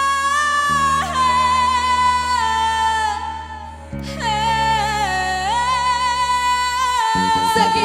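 A young female vocalist sings long, wordless held notes with vibrato and slides over a pop backing track of sustained chords. A beat comes in near the end.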